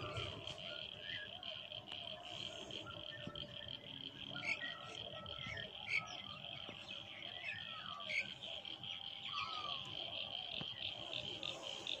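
Steady, fast-pulsing high chorus of small calling animals, with scattered short chirping bird calls over it and a few sharp high notes.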